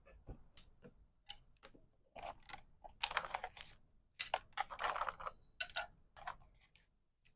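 Small packaging items being handled: a run of light clicks and taps, with two longer stretches of rustling about three and five seconds in.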